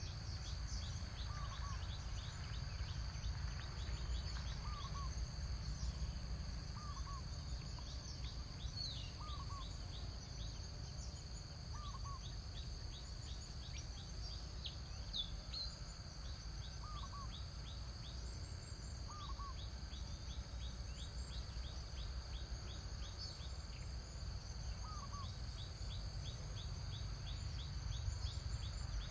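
Forest ambience: a bird gives a short two-note call every few seconds over a steady high insect drone and a dense run of quick chirps, with a low rumble underneath.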